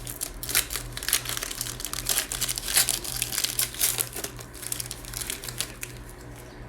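Plastic wrapping of trading card packs being crinkled and torn open by hand, in quick irregular crackles that die down near the end.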